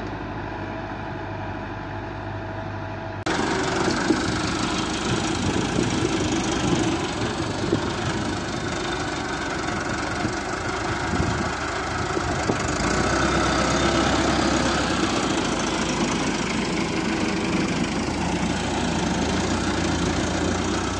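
Massey Ferguson 385 tractor's diesel engine running steadily while the tractor pulls a spring-tine cultivator through tilled soil. About three seconds in, the sound jumps louder and fuller.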